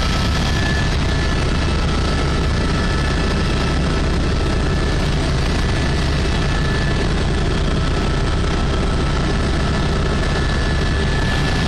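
Helicopter engine and rotor noise inside the cabin: a loud, steady low rumble with a couple of thin, steady whining tones above it.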